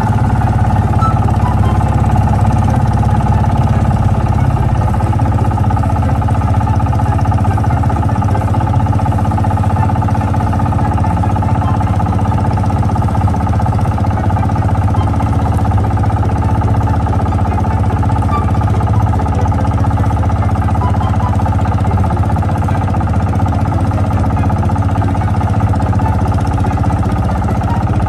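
Engine of a small wooden fishing boat running at a steady speed while the boat is under way.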